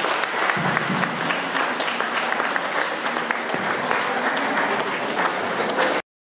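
Audience applauding, many hands clapping densely; the sound cuts off suddenly about six seconds in.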